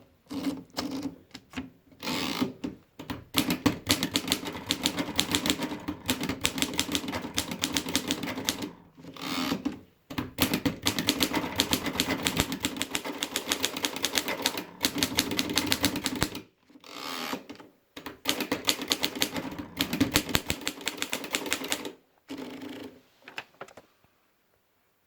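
Juwel Model 3 manual typewriter being typed on: fast runs of key strikes, broken by several short pauses, stopping shortly before the end.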